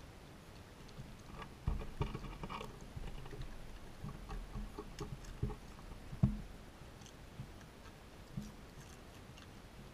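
Raccoons crunching and chewing Doritos tortilla chips close to the microphone, with scattered sharp knocks and taps. The knocks come thickest a couple of seconds in, and the loudest single knock falls about six seconds in.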